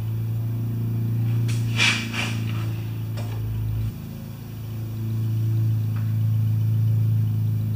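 Small engine running steadily with a low hum, which dips briefly about four seconds in. A couple of metal clanks about two seconds in.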